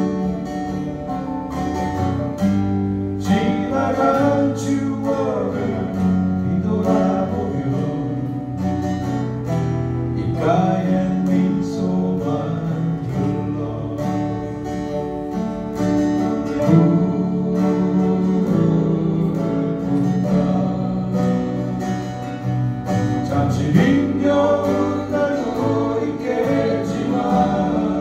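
Small band playing live: strummed acoustic guitars, bass guitar and keyboard, with a voice singing over them.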